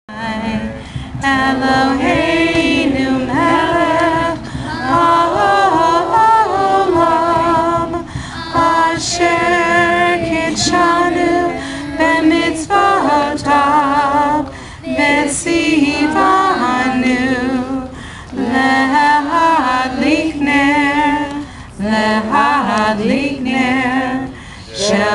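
A woman singing a slow song into a microphone, amplified over a PA, in long wavering phrases with short pauses between them.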